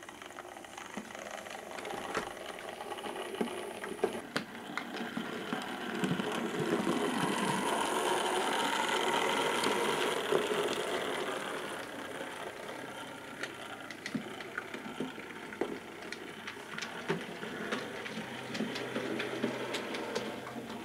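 Model railway locomotive running along the track: the whirr of its small motor and gears, with a patter of wheel clicks over the rail joints. It grows louder as it approaches, is loudest in the middle and fades as it moves away.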